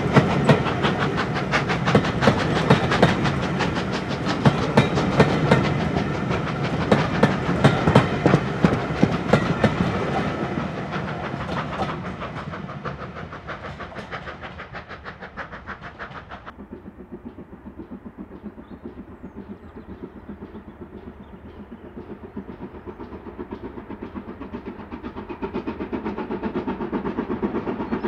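Coaches of a steam-hauled train pass close by, their wheels clattering over rail joints, then fade as the train draws away. About halfway the sound changes abruptly to the distant, rhythmic chuffing exhaust of GWR Manor class 4-6-0 No. 7802 Bradley Manor working its train, which grows louder near the end.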